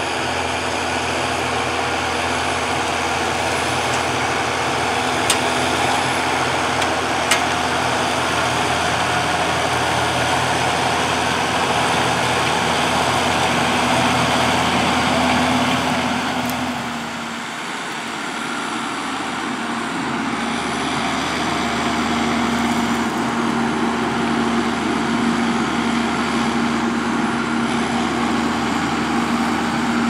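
John Deere 7530 Premium tractor's six-cylinder diesel engine running steadily under load while ploughing. The sound dips briefly a little past halfway, then carries on.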